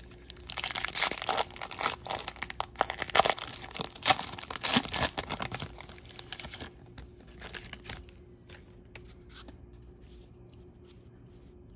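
A trading-card pack's wrapper being torn open and crinkled, dense and crackly for about six seconds, then quieter scattered ticks as it dies down.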